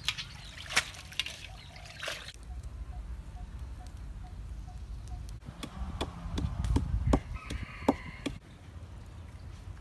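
A string of short outdoor cooking sounds: water splashing and dripping as shrimp are rinsed in a bamboo basket, a fowl calling with a row of short even notes, then a few knocks of a wooden pestle in a clay mortar.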